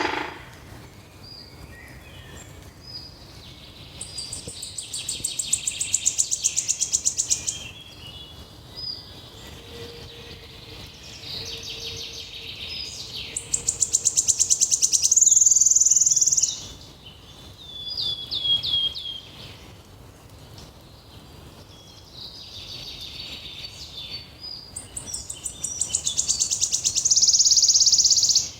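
A songbird singing: three long phrases of very rapid, high trills that each grow louder before stopping, with short chirps and a quick series of falling notes between them.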